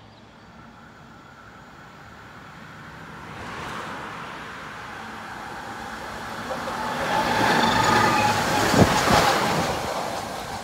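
Tatra tram passing close by. It grows louder over several seconds and is loudest about eight to nine seconds in, with a steady whine of a few high tones over its running noise, then starts to fade.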